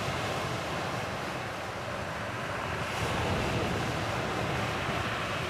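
Sea surf: a steady rush of waves washing on the shore.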